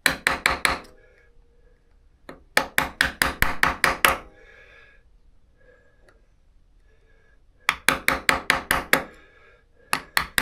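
Hand hammer striking metal in quick runs of rapid blows, about six a second, in three runs with a couple more blows near the end, bending the lock plate over the front sprocket nut.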